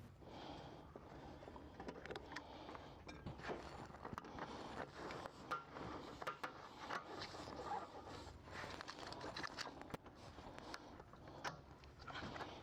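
Faint, irregular scraping and clicking of hand work on a truck seat: the factory metal J-clips holding the bottom cushion cover are being unclipped from the seat frame.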